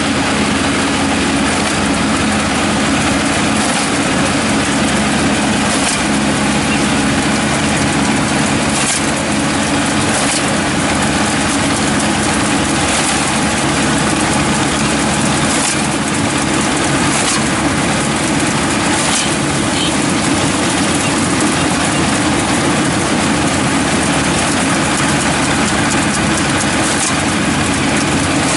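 Kubota ER447 combine harvester running steadily while harvesting wheat, its engine note constant with a few faint ticks from the machinery.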